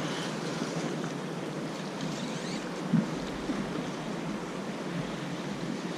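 Sea water sloshing and lapping with wind noise on the microphone, and a short knock about halfway through.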